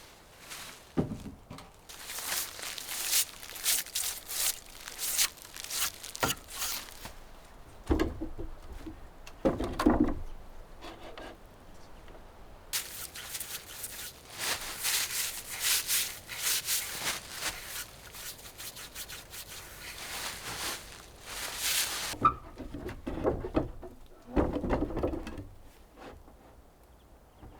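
Repeated rubbing and scraping strokes in two long runs, with a few dull knocks in between and near the end.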